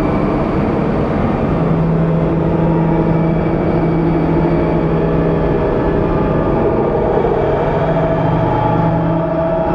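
Live experimental drone and noise music: a dense, continuous rumble under several sustained held tones, with a strong low drone tone coming in about a second and a half in.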